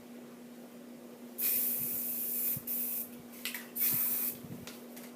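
Aerosol spray-paint can spraying in three bursts of hiss, the first a little over a second long and the other two shorter.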